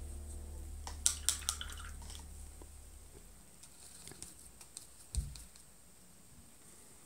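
A paintbrush being rinsed in a cup of water, with a few quick clicks of the brush against the cup about a second in. Then faint ticks of the brush on the watercolour pans and a soft knock a little after five seconds.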